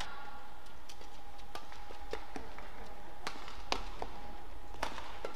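Badminton rackets striking a shuttlecock in a rally: scattered sharp cracks, the loudest about three and a half seconds in and another near five seconds. Underneath is a steady low hum.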